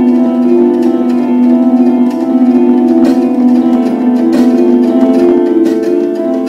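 Background instrumental music, with held notes that change steadily from one to the next.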